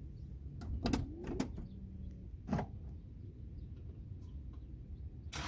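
A few sharp clicks and clunks, about a second in and again at about one and a half and two and a half seconds, over a low steady rumble; just before the end a rushing noise rises.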